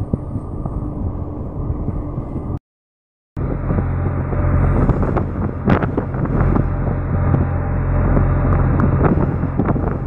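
Wind buffeting the microphone on a ship's open deck over the steady low hum of the ship's engine. The sound cuts out for under a second about three seconds in, then returns with the engine hum stronger and a few sharp snaps.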